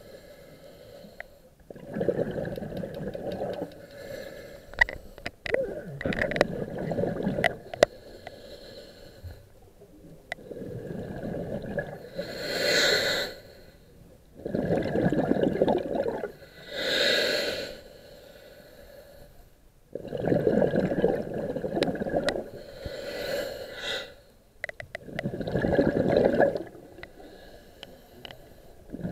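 A scuba diver breathing through a regulator underwater: long bubbly exhalations alternate with shorter hissing inhalations through the demand valve, in a slow rhythm of a breath every four to five seconds.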